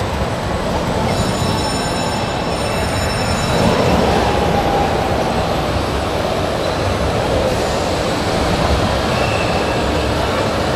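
Amusement ride machinery running as the ride starts to lift and turn: a steady mechanical rumble, with a thin high-pitched whine for a couple of seconds shortly after the start.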